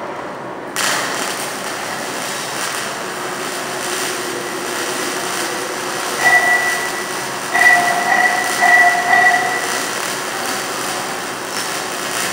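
Stick (SMAW) welding arc with a 6011 electrode, a steady crackling hiss that starts abruptly about a second in. A high whistling tone comes and goes several times in the middle.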